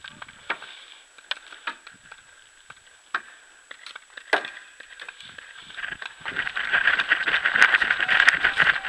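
Scattered sharp pops of paintball fire, then from about six seconds a dense, louder crackling rustle of the player moving through dry grass.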